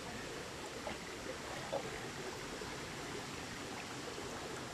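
Steady rush of water flowing over boulders in a rocky mountain stream.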